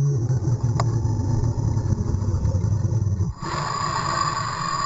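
Underwater breathing through a scuba regulator: a low, rough, bubbling exhale with a voiced groan in it, then about three and a half seconds in a hissing inhale.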